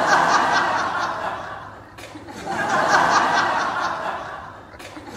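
Laughter in two swells, each rising quickly and fading away over about two seconds.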